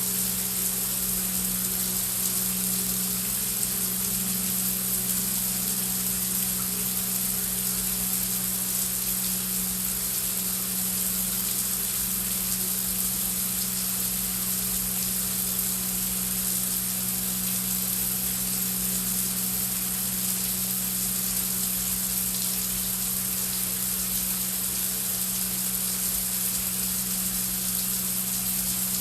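Heavy rain falling as a steady, dense hiss with no gaps, with a low, unchanging drone underneath.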